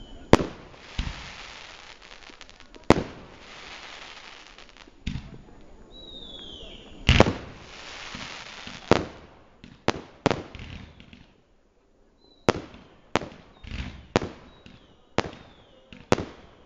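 Fireworks display: aerial shells bursting with sharp bangs, about seventeen of them, spaced out at first and coming in quick succession in the last third. A hissing crackle trails the early bursts, and a short falling whistle comes about six seconds in.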